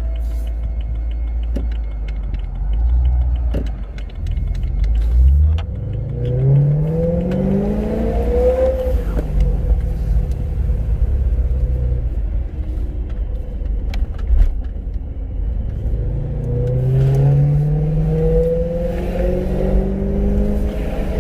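Supercharged BMW E92 M3's V8 engine running with a steady low rumble. Revs climb from about four seconds in, drop off near nine seconds, and climb again from about sixteen seconds.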